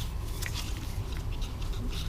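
Light, irregular clicks and scratches of small plastic and metal recoil-starter parts being handled, over a steady low hum.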